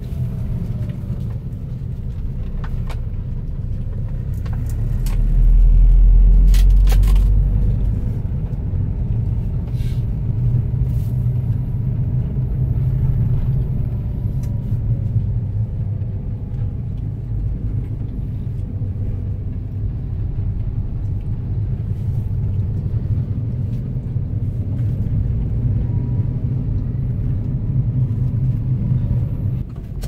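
Car driving, a steady low rumble of engine and road, with a louder deep surge from about five to eight seconds in and a few sharp clicks around then.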